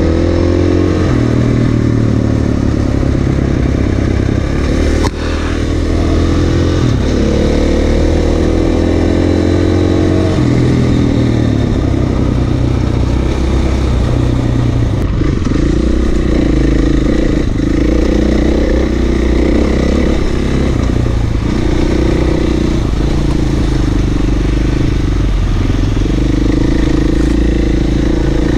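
Motorcycle engine running under way, its pitch repeatedly climbing and then dropping as the rider works the throttle and shifts gears. One sharp knock about five seconds in.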